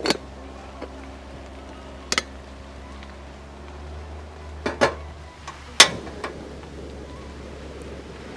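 A few sharp clicks and clatters of a small metal kettle being handled on a camp gas stove, the loudest about six seconds in, over a low steady hum. A soft steady hiss builds after that.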